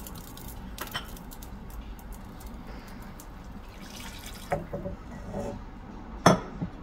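Chicken stock poured from a jug into a pan of butter-and-flour roux and stirred in with a wire whisk, with faint liquid dripping and trickling: stock being added little by little to make a white sauce. A single sharp clink near the end.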